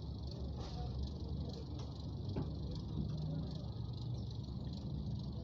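Restaurant kitchen noise: a steady hiss over a low rumble, with a couple of faint clicks about two seconds in.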